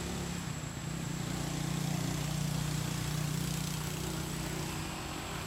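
An engine running steadily with a low hum, growing a little louder about a second in and easing off near the end.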